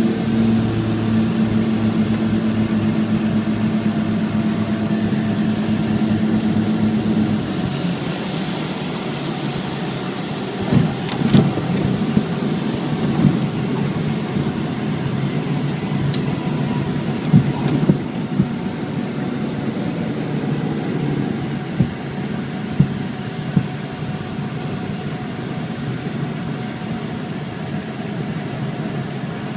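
Twin piston engines of a Cessna 414 heard from inside the cabin during the landing: a steady engine drone whose tone drops and thins about a quarter of the way in as power comes back. Several short thumps and rattles follow through the middle of the stretch.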